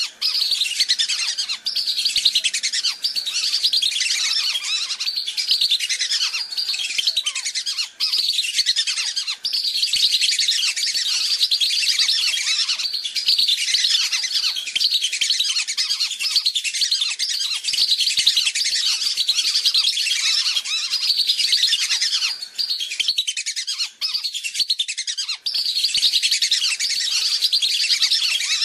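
Lure recording of a flock of whistling ducks (belibis) calling: a dense, continuous chatter of many short, high whistles, with a few brief dropouts.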